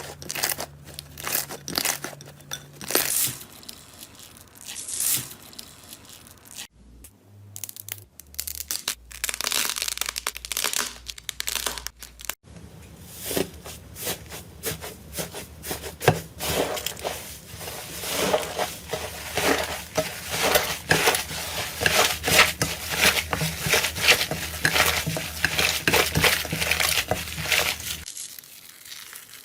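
Slime being squeezed, stretched and poked by hand, giving dense runs of small sharp clicks and pops. The sound changes at a few cuts, about 7 and 12 seconds in and near the end.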